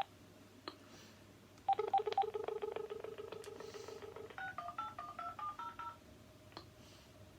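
Uniden XDECT cordless phone: a few key clicks, then a pulsing line tone for about two and a half seconds, followed by a quick run of touch-tone dialing beeps stepping through different pitches as a number is dialed.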